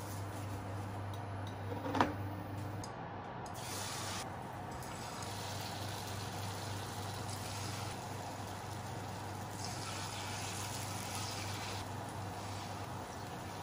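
Battered food frying in a shallow pan of hot oil, sizzling steadily, with a sharp click about two seconds in.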